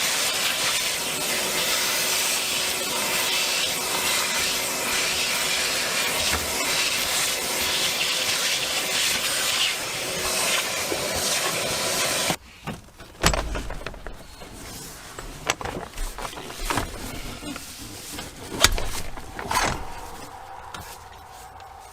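Ford 5.4L V8 engine of a van idling steadily, then stopping abruptly about twelve seconds in. A few scattered clicks and knocks follow.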